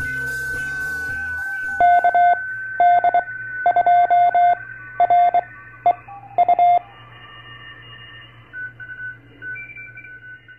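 Morse code (CW) tone, one steady mid pitch keyed into short and long beeps, dots and dashes, for about five seconds after the last of an intro jingle fades in the first second and a half. Fainter, higher-pitched beeps follow near the end.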